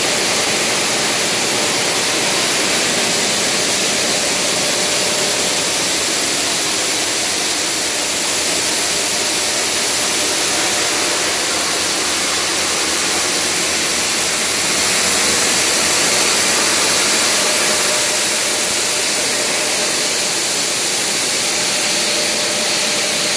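Large diamond saw blade of a WANLONG QSQ-2200/2500 stone block cutting machine running through a stone block under water spray: a loud, steady, even noise with a faint steady tone in it, swelling slightly about two thirds of the way through.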